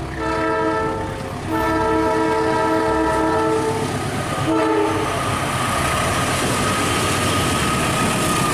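CC206 diesel locomotive sounding its chime horn in three blasts, short, long, short. Then the train passes close by with a loud steady rush of wheels and running noise.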